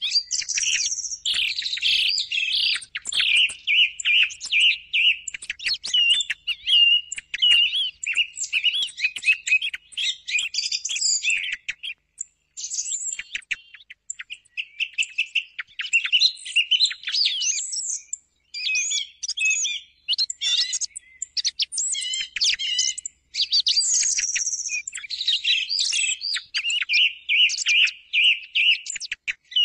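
Song thrush singing: short, varied phrases of clear whistles and rapid notes, many of them repeated several times in a row, with a few brief pauses.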